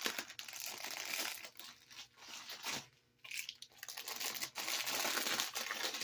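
Plastic packaging crinkling and rustling as it is handled and torn open, in uneven stretches with a brief pause about three seconds in.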